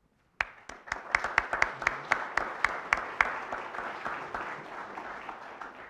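Audience applauding. It starts about half a second in, with a few sharp, close claps standing out during the first three seconds, then dies away near the end.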